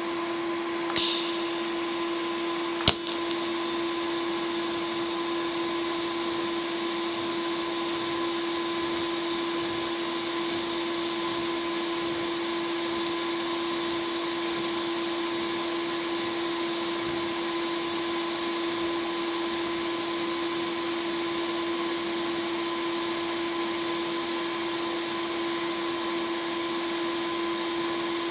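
TIG welding torch and welder running during a side-to-side weld along an edge joint, a steady hum with a constant tone and hiss. There is a short hiss about a second in and a sharp crack about three seconds in, typical of the high-frequency arc start.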